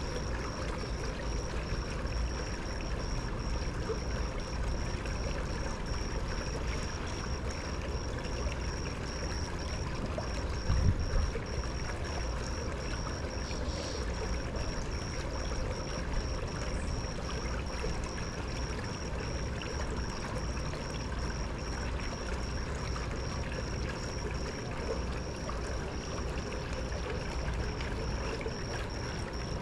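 Steady trickling, flowing pool water. A faint high pulsing tone runs a few beats a second throughout, and there is one low thump about 11 seconds in.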